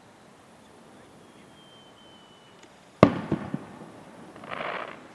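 A firework shell bursting: one sharp loud bang about three seconds in, followed by a couple of smaller pops and, about a second later, a short hiss.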